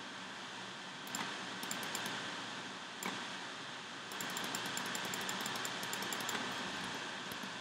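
Computer mouse clicking over a steady hiss, with a quick run of small ticks from about four seconds in that lasts about three seconds.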